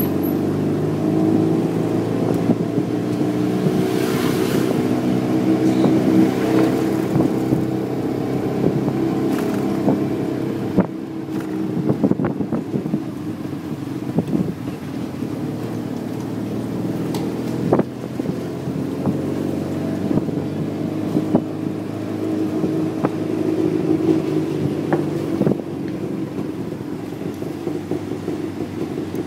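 Tuk tuk (auto rickshaw) engine running while it drives, heard from the open passenger cab, its pitch rising and falling with the throttle. A few sharp clicks or knocks come now and then.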